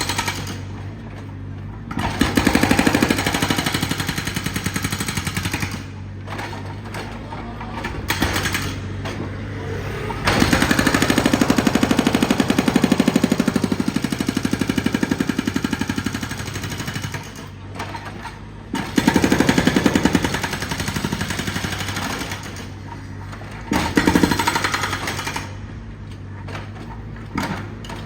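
Jackhammer (pneumatic breaker) hammering in repeated bursts with short pauses between them. The longest burst, about six seconds, falls near the middle.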